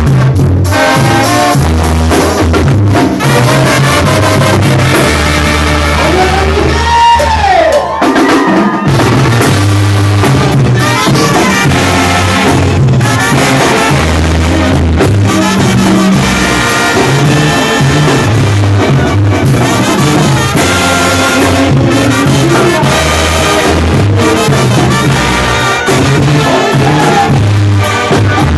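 Loud band music led by trumpets over drums and bass notes. About seven seconds in, a high note slides down in pitch.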